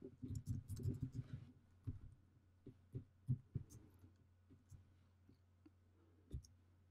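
Faint keystrokes on a computer keyboard: a quick run of taps in the first second and a half, then scattered single clicks.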